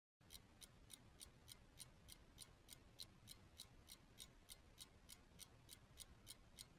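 Faint, even ticking of a clock, about three ticks a second.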